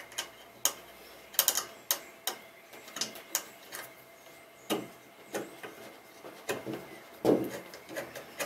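Small Allen key turning a screw into a metal gantry plate on an aluminium extrusion: irregular light metallic clicks and ticks as the key is turned and re-seated in the screw head, with a few duller knocks near the end.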